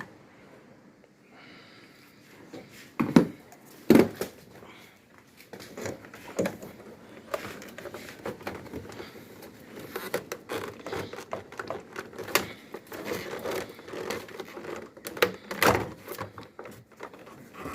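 Plastic air filter box being unclipped and worked loose from a car's engine bay: irregular clicks, knocks and plastic rattles, with two sharper knocks about three and four seconds in.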